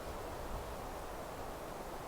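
Steady outdoor meadow ambience: an even rustling hiss with a low rumble underneath and no distinct birdsong.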